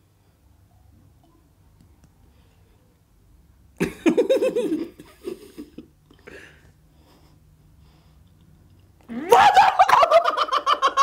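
A man and a woman burst into loud laughter about nine seconds in. Before that there is only quiet room tone, broken about four seconds in by one short loud burst of sound and a few fainter ones.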